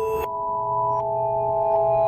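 Electronic emergency-alert tones: several steady pure tones held together like a chord, with single tones stepping to a new pitch or dropping out every second or so, over a low steady hum.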